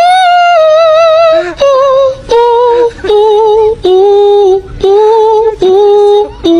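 A person singing unaccompanied in a high voice: a string of long held notes with a wavering vibrato, stepping down in pitch, with short breaks between them.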